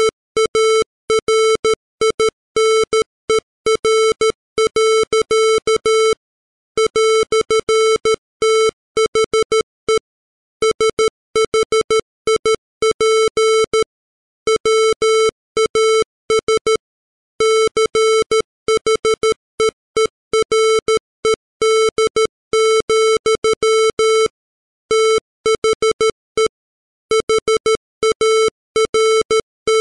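Computer-generated Morse code at 13 words per minute: a 440 Hz square-wave tone keyed on and off in dots and dashes, with short pauses between letters and longer gaps between words.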